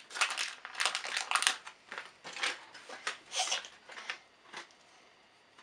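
Plastic LEGO minifigure blind bags crinkling and rustling in irregular bursts as they are torn open and handled, dying away near the end.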